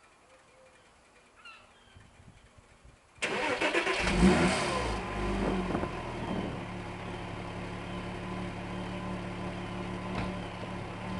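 Porsche Boxster engine with sports exhaust starting about three seconds in: it catches with a loud flare of revs, then settles into a steady idle. A few faint bird chirps come before the start.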